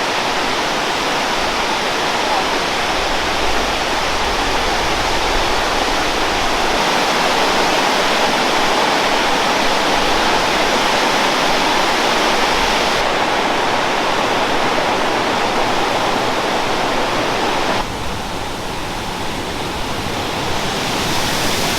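Blackwater Falls, a 57-foot cascade, sending up a loud, steady rush of falling water. The sound shifts abruptly twice, about 13 and 18 seconds in.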